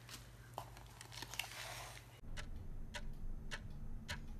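A few light clicks and rustles as craft things are moved on a tabletop. Then, after an abrupt change about halfway through, a steady clock-like ticking just under two ticks a second over a low hum.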